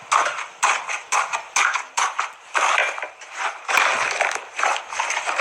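Slime being squeezed and poked, making a run of sharp clicks and pops about three a second. About halfway through they thicken into denser crackling.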